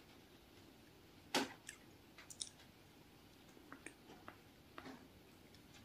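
Faint eating sounds: the crisp sugar-crust top of a pineapple bun crackling as pieces are torn off by hand, with quiet chewing. A handful of short crackles and clicks, the sharpest about a second and a half in.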